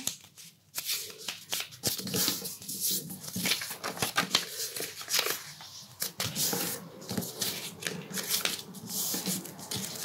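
A strip of paper being folded in half and creased flat by hand against a wooden tabletop: irregular rustles, soft taps and scrapes.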